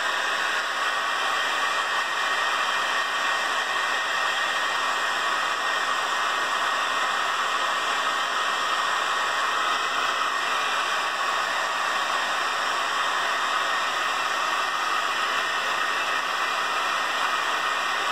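Handheld hair dryer blowing steadily at a constant pitch and level, heating a rubberized pistol grip wrap so it softens and sticks to the frame.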